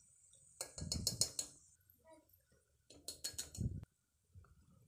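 Plastic measuring spoon knocking against an aluminium pressure cooker as spice powder is tipped in: two short bursts of rapid clicks and clatter, one about a second in and one about three seconds in.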